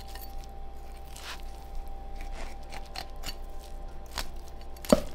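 Kitchen prep handling sounds: scattered light knocks and crunchy cutting or scraping, with one sharper knock near the end, over a steady faint hum.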